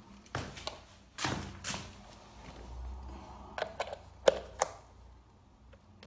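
Handling knocks and a few sharp plastic clicks, the loudest about four seconds in, as a plug-in socket tester is pushed into a UK 13 A wall socket.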